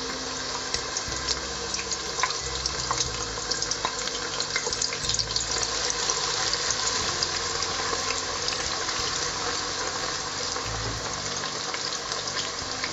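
Chopped onions sizzling and crackling in hot red palm oil in a stainless steel pot, stirred with a wooden spoon.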